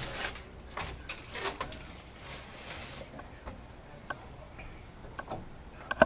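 Rustling and a run of clicks and knocks from hands working at an over-the-range microwave, thinning out to scattered small clicks, with one sharp click near the end.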